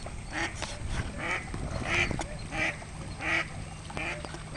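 A hen duck quacking over and over in a steady run, about one quack every two-thirds of a second: alarm calls of a mother duck with a dog swimming after her ducklings.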